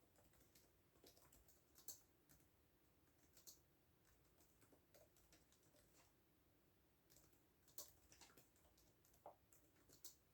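Faint computer keyboard typing: scattered key clicks in a few short, irregular bursts with pauses between them.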